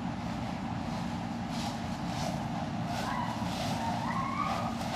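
Steady low hum of running equipment, with a faint wavering tone rising and falling in the second half.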